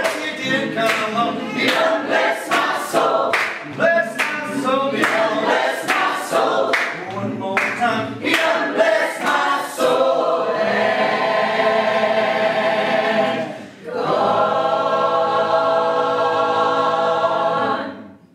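Mixed choir of women's and men's voices singing a cappella: quick rhythmic phrases for about ten seconds, then two long held chords with a brief break between them, the last one ending near the end.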